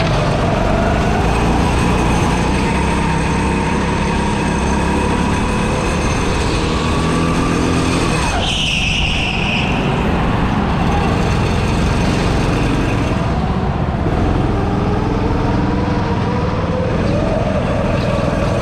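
Go-kart engine running at speed, its pitch climbing slowly along a straight, dropping about halfway through with a brief hiss, then climbing again near the end.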